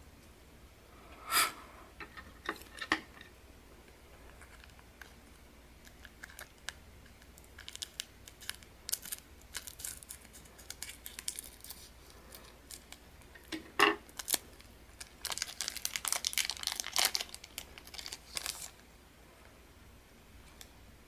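Scissors snipping across the top of a foil trading-card pack, with the foil wrapper crinkling as it is handled and pulled open. There are scattered sharp snips and clicks, one loud click about two thirds of the way in, then a long spell of dense crinkling near the end.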